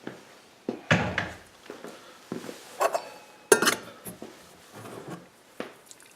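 China teapot and cup knocking and clinking as they are handled, about half a dozen separate clinks, one of them ringing briefly around the middle.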